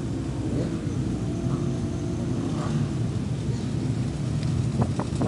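A large group of motorcycles riding slowly in procession, their engines running together in a low, steady rumble.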